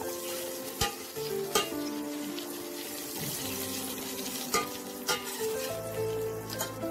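Curry leaves, dried red chillies and garlic sizzling as they fry in hot oil in a stainless steel kadai, stirred with a metal spatula that scrapes and knocks sharply against the pan a few times.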